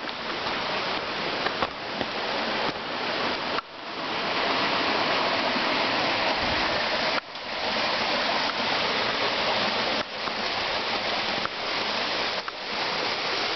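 Rushing water of a stream or small waterfall, a steady dense hiss that breaks off abruptly and resumes a few times.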